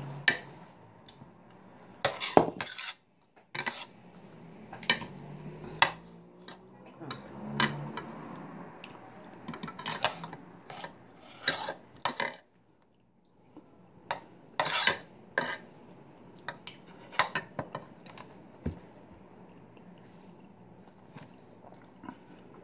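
Metal cutlery clinking and scraping against plates and bowls during a meal, with irregular sharp clinks spread through.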